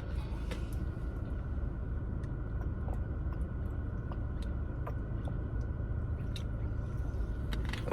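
A person chewing food, with scattered small mouth clicks and smacks, over a steady low rumble.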